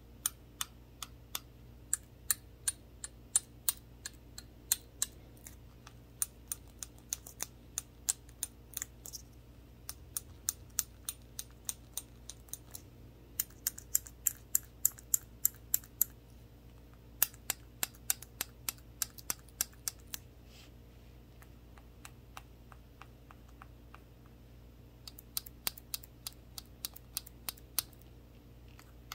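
Toothpick tips on gloved fingers tapping a small glass shot glass: light, sharp clicks in runs of several taps a second, stopping for a few seconds late on before starting again.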